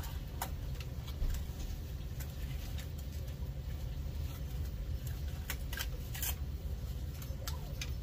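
Cardboard packing insert being pulled out of a 3D printer's frame: scattered rustles, scrapes and light knocks, a few louder ones past the middle, over a steady low hum.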